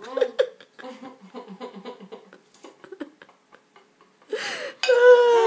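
A woman giggling and breathing in short bursts through a mouth stuffed full of Maltesers, then near the end a louder vocal sound sliding down in pitch as she takes the sweets out.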